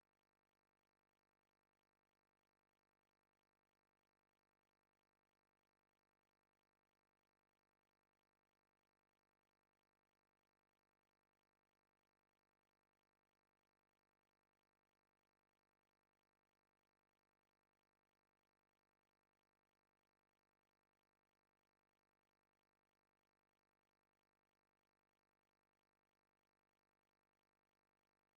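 Near silence: the audio track is essentially blank, with no sound events.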